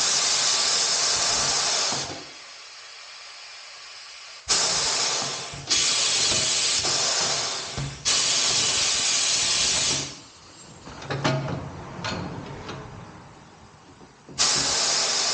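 Compressed air hissing from an air hose in repeated loud spurts of one to three seconds each, as when air is fed into a flat tire. There are a few small knocks in the quieter gaps between the spurts.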